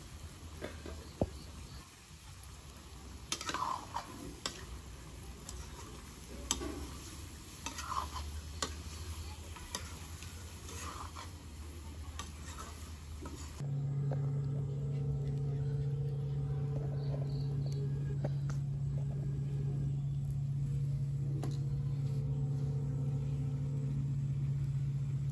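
A metal ladle scraping and clinking against a steel wok as meat stir-fries and sizzles over a wood fire. About halfway through the sound changes abruptly to a steady low hum, which then is the loudest thing, with a few lighter clinks of the pan.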